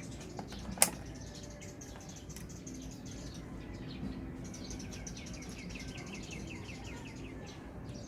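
Birds chirping in rapid, repeated trills, with one sharp click a little under a second in.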